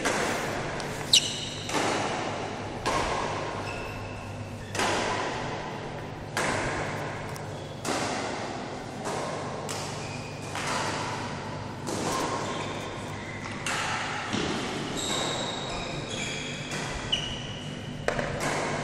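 Badminton racquets striking a shuttlecock during rallies, sharp hits every second or two that echo in a large hall. Short high squeaks of shoes on the court floor come in between, the loudest about a second in and a few more near the end.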